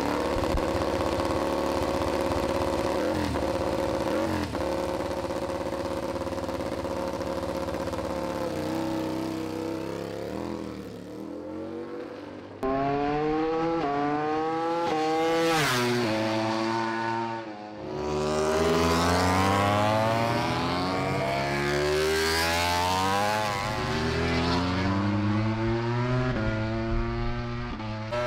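Aprilia RS-GP MotoGP bike's four-cylinder engine, first running at a steady speed, then about twelve seconds in at full race pace: the pitch repeatedly climbs through the gears and drops again as the bike passes on the circuit.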